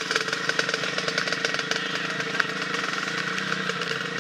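Husqvarna FX 350 dirt bike's single-cylinder four-stroke engine running at a steady moderate speed, a rapid even firing note.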